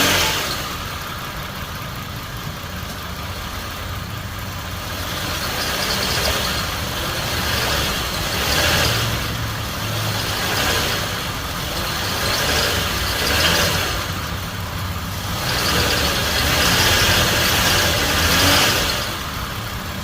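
Car engine idling steadily, with a hiss that swells and fades every couple of seconds.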